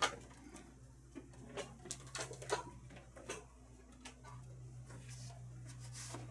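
Scattered light knocks and clicks as a flat-screen TV is handled and brought onto a metal swing-arm wall bracket, the sharpest knock right at the start, over a low steady hum that swells in the second half.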